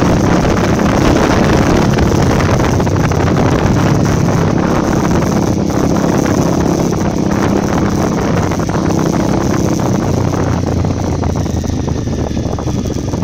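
Honda CRF 250 Rally's single-cylinder four-stroke engine running while the bike is ridden, picked up by a phone mounted on the motorcycle, with wind noise on the microphone.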